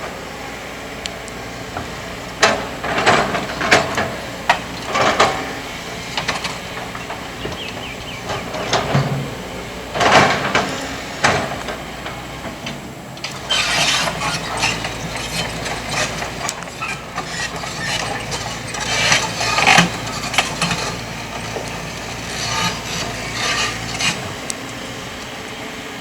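Kobelco excavator's diesel engine running steadily while the bucket digs, with repeated irregular clattering and scraping of sand and stones against steel.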